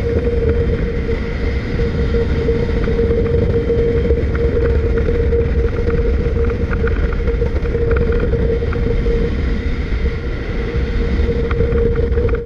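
Outboard motor of an aluminum bass boat running steadily at cruising speed: a steady whine over a low rumble, with the hull moving through the water.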